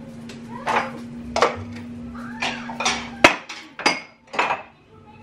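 Dishes and kitchenware being handled and set down on a kitchen counter: a string of clinks and knocks, the loudest a little past three seconds in. A steady low hum runs underneath and stops at that loudest knock.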